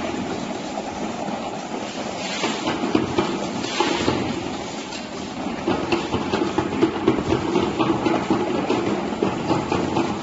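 Automatic bottle labelling machine running: a steady mechanical hum with frequent light clicks and knocks as the conveyor carries bottles through.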